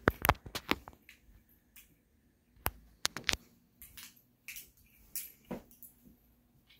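Scattered sharp clicks and taps at irregular intervals from someone moving about with a handheld camera, a quick cluster at the start and another about three seconds in, then sparser taps.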